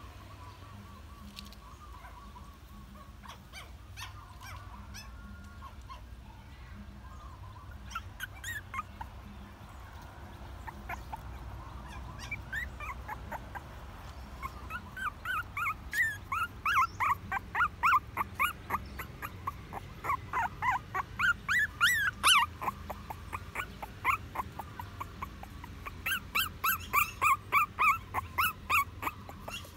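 Young puppy whimpering in short, high cries, several a second. They start faintly about eight seconds in, then come loud and fast in two runs with a short pause between.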